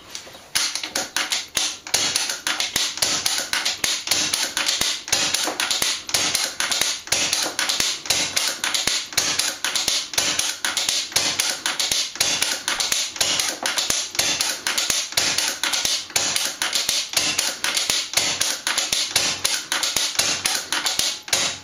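Regulated PCP air rifle fired over and over in quick succession, a rapid run of sharp cracks and clicks from the shots and recocking. It starts about half a second in and stops just before the end.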